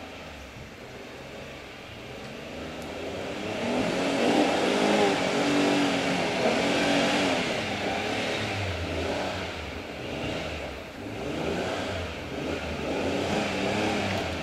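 Holden Jackaroo 4WD's engine revving up and down as it is driven over a rutted off-road dirt track, getting louder about three seconds in as it nears.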